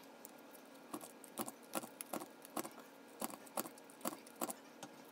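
A handheld paper punch tool clicking repeatedly on small pieces of cardstock: about a dozen sharp clicks, roughly three a second, starting about a second in.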